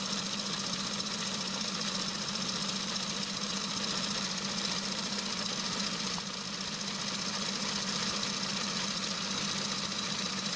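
Home-built micro lathe running under power, its belt-driven electric motor turning the spindle: a steady mechanical whir over a constant hum.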